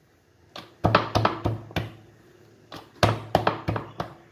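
Hands patting and pressing a stuffed aloo paratha flat on a wooden rolling board (chakla): two runs of quick knocks and thuds, about four or five a second, each lasting about a second.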